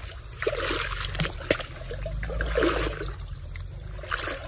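Footsteps wading through shallow, muddy river water, with irregular splashing and sloshing.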